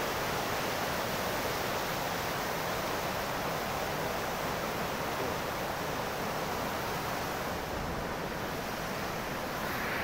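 Small river waterfall and rapids: a steady rush of white water.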